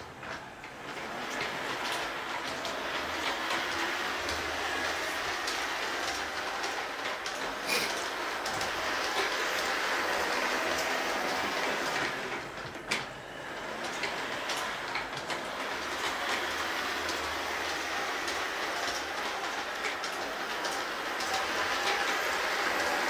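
LGB G-scale model train running on its brass-rail track laid on a hard tile floor: a steady rolling noise from the wheels on the rails, quieter for the first second or so, with a sharp click about 13 seconds in.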